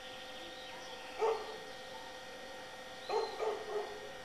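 A dog barking: one short bark about a second in, then three quick barks about three seconds in.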